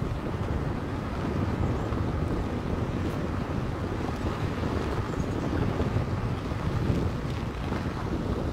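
A vehicle driving on a gravel road: a steady low rumble of tyres and engine mixed with wind noise on the microphone.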